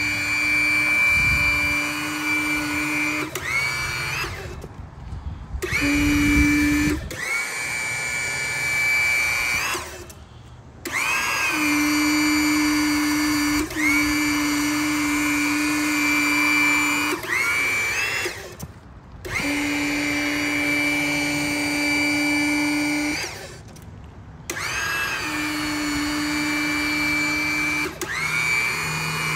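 Electric-hydraulic power unit driving a two-cylinder cable puller for trenchless pipe replacement, running in repeated strokes. Each stroke starts with a rising whine that settles into a steady high-pitched whine, then cuts off for about a second; this happens about five times.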